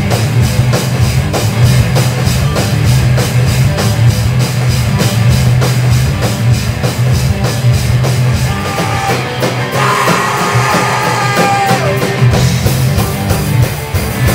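Live rock band playing loud, with electric guitars over a heavy, dense low end and a drum kit keeping a regular beat. Higher held notes cut through around ten seconds in, and the song stops near the end.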